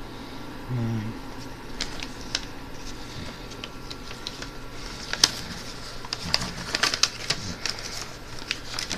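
Sheet of paper being folded and creased by hand: scattered crinkles and sharp taps that grow denser in the second half. A brief low hum about a second in.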